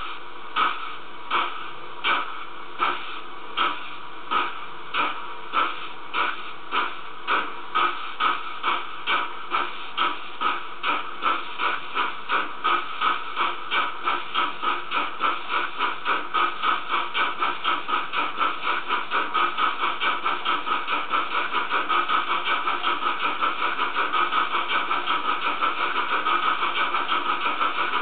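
Digital steam sound from the Dietz X-Clusive sound module and Lenz decoder in a gauge 0 model of DB class 23 steam locomotive 23 105, playing exhaust chuffs over a steady hiss as the model runs up to speed on a rolling road. The chuffs are timed by a 15 mm wheel sensor. They quicken steadily from about one and a half a second to a rapid beat.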